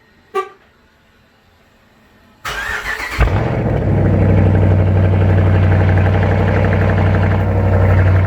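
A short beep, then the Dodge Challenger's Hemi V8 cranks briefly, catches and settles into a loud, steady idle.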